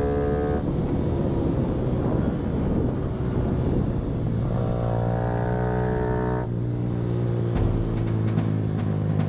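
Mini GP race bike's small engine heard onboard, running hard at high revs. Its note changes a few times as the throttle is eased and reopened through the corners.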